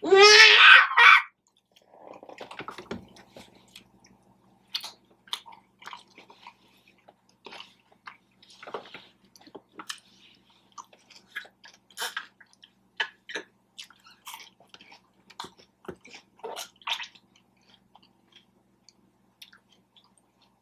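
Close-up mouth sounds of a person chewing food: scattered short smacks and clicks. A brief loud voice sound comes at the very start.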